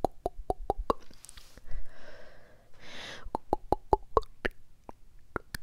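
ASMR mouth sounds made right on a microphone: quick runs of wet mouth pops and clicks, about five a second. The pops stop about a second in for a few seconds of breathy hissing, then start again.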